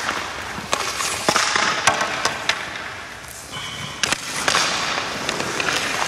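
Ice hockey skates scraping and carving on rink ice as players push and slide, with several sharp clicks of sticks and puck on the ice.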